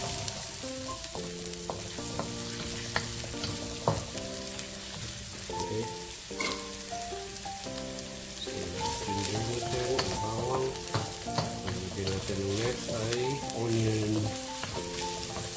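Minced garlic sizzling in olive oil in a metal wok, stirred with a wooden spatula that taps and scrapes against the pan now and then. Background music plays underneath.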